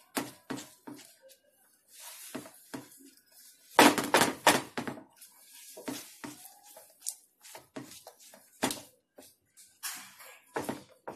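A spatula scraping and knocking against a pan as a thick milk-powder mixture with powdered sugar is stirred, in irregular strokes, with a louder run of scrapes about four seconds in.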